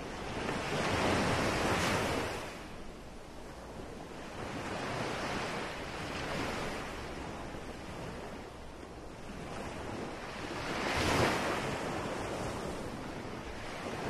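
Ocean surf washing in: a steady rush of noise that swells and eases in slow surges, the loudest at about eleven seconds in.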